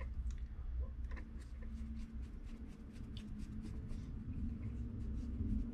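Small screwdriver driving the screws that hold a plate inside a metal spinning-reel body, with light scattered clicks and scratching as the tool and reel are handled.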